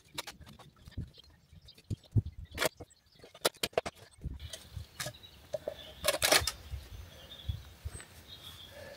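Hand digging in stony ground: irregular scrapes and sharp knocks of a digging tool against soil and stones, with a tight burst of knocks about six seconds in the loudest.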